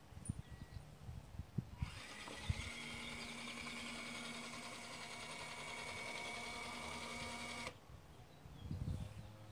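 Small electric gear motor of an RC rollback tow truck whining steadily as it drives the flatbed rearward; it starts about two seconds in and cuts off sharply near the end. Scattered low thumps come before and after it.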